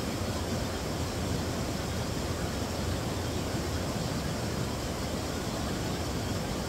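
Water pouring over a low river weir: a steady, even rushing that does not change.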